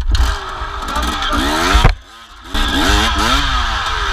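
KTM enduro dirt bike's engine revving hard as the bike pulls away. The revs climb, cut off sharply about two seconds in, then pick up again and rise and fall.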